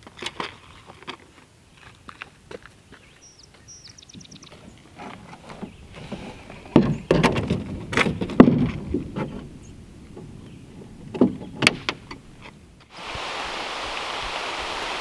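Scattered knocks and water splashes from a paddle working a solo canoe, louder for a few seconds in the middle. About two seconds before the end the sound cuts suddenly to the steady hiss of heavy rain.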